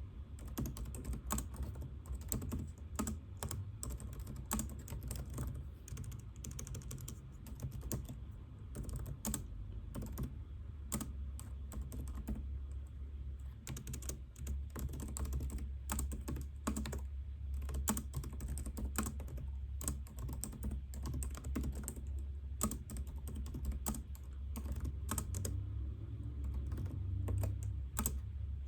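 Computer keyboard typing: a steady, irregular run of key clicks over a low background hum.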